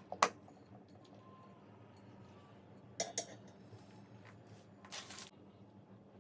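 A few sharp metallic clinks and knocks of metal frame parts and tools being handled, the loudest just after the start and a double knock about three seconds in. A short scraping slide follows about five seconds in.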